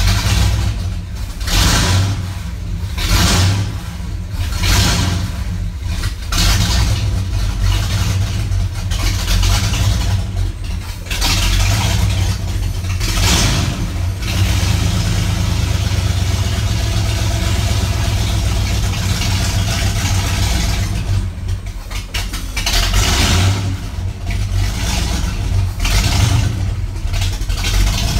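Monster truck's engine heard from inside the cab, running cold just after a cold start and revved repeatedly. The revs rise and fall several times in the first half and again near the end, with steadier running in between.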